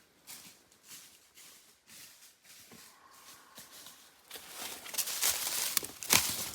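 Crunching and rustling in dry leaves and brush, soft and irregular at first, then louder and busier from about four seconds in, with a sharp crack near the end.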